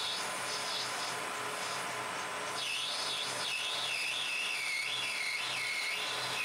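Metal lathe running steadily with a brass workpiece spinning in the collet, a constant hum and hiss. From about halfway in, a high, wavering squeal rises and dips repeatedly.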